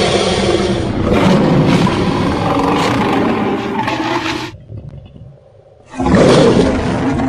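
Sound-designed roars of a Purussaurus, a prehistoric giant caiman, mixed from alligator, crocodile and lion recordings. One roar gives way to another about a second in; that one fades out at about four and a half seconds, and after a short lull a new loud roar starts near the end.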